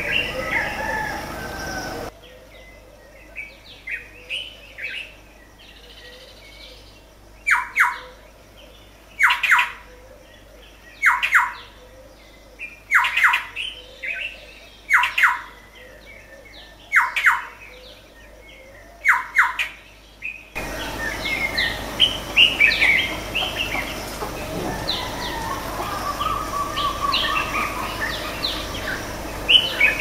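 Morning chorus of several birds chirping and calling. Through the middle stretch one bird gives a loud call that slides down in pitch, repeated seven times about two seconds apart, before the many-voiced chirping returns.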